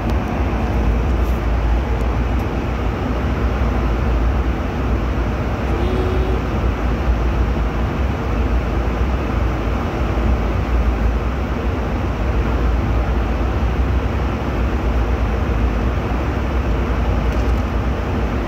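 Airliner cabin noise in flight: a steady, unchanging rumble of engines and rushing air, heaviest in the low end.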